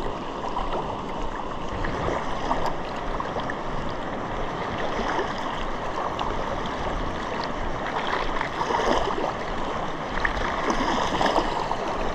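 Small estuary waves washing in over a sandy shore: a steady rush of water that swells in surges every few seconds.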